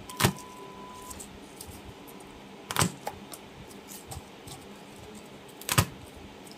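Three sharp knocks about three seconds apart as a kitchen knife is pressed and struck down on garlic cloves on a plastic cutting board to crush them, with lighter clicks of handling the cloves in between.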